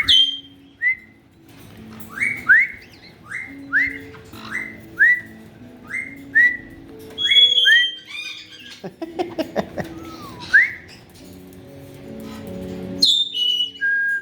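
Caique parrot giving a short rising whistle again and again, about two a second, with a harsh squawking burst about nine seconds in. Soft background music plays underneath.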